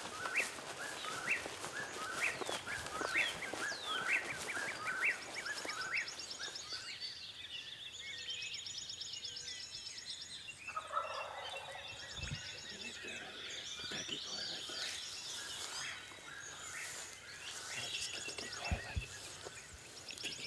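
Wild turkey toms gobbling amid songbirds calling, with short chirping notes repeated in the first few seconds and high trilled calls later. A few low thumps come in the second half.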